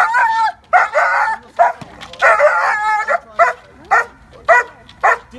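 A dog barking repeatedly, as in protection (bite-suit) training: a few longer barks over the first three seconds, then short barks about twice a second.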